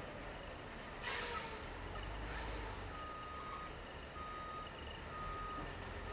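Dump truck's diesel engine running steadily while it tips its load of dirt, with a sharp hiss of released air about a second in and a shorter one a second later. From about halfway a reversing alarm beeps about once a second.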